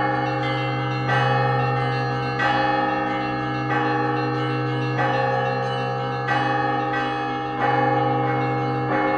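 Russian Orthodox church bells of bronze being rung in a steady rhythm: a chord of bells struck together about every 1.3 seconds, over the long low hum of a large bell that keeps sounding between strokes.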